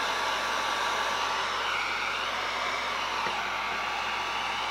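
Handheld electric heat gun running, a steady blowing rush with a faint steady whine in it, heating a vinyl graphic to soften it.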